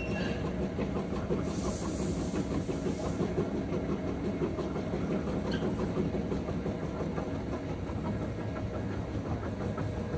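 Two-roll open mill running steadily as pink silicone rubber is worked between its rollers during colouring: a continuous mechanical rumble with a dense patter of small clicks. A brief hiss comes in about a second and a half in.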